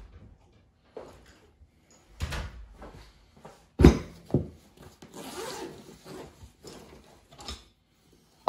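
Hands working on a wiring harness with hand tools: a string of scattered clicks and knocks, the sharpest about four seconds in, then a rustle lasting a couple of seconds.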